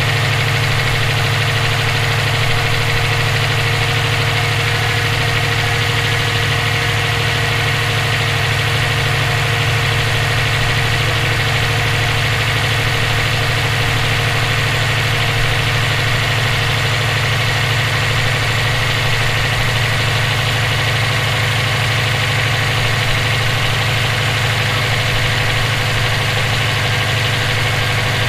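Subaru EJ257 turbocharged flat-four engine idling steadily with a persistent knocking noise. The owner wonders whether it is rod knock from a spun bearing or valve lash in need of adjustment.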